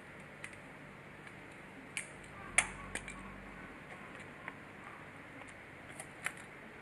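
A few light clicks and taps from gear being handled, the sharpest about two and a half seconds in, over a steady background hiss.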